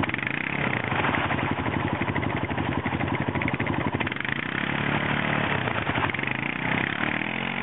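ATV engine running steadily, under load as the quad is worked out of a mud hole, its pitch swelling partway through and again near the end.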